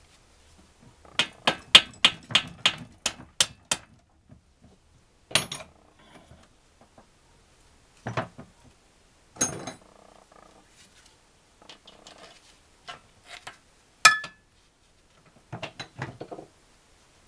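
Metal-on-metal clicks and taps from the rocker arms and rocker shaft of an NSU Special Max 250 cylinder head being worked loose by gloved hands: a quick run of taps about a second in, about five a second, then scattered single clinks, one ringing briefly, with faint scraping between.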